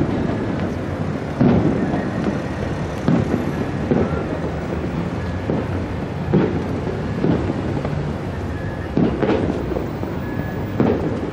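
Fireworks shells bursting in irregular booms, roughly one a second, over a steady low rumble.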